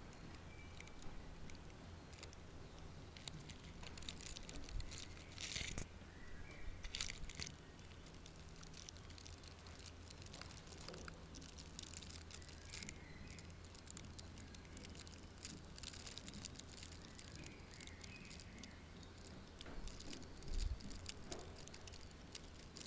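Faint background with a steady low hum, broken by a few short rustling noises about five to seven seconds in and again near the end.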